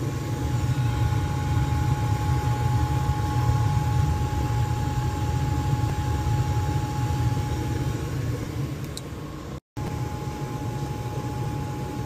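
Rheem 80% efficiency gas furnace running with its burners lit: a steady low rumble of burner and fan, with a steady whine above it from the draft inducer motor.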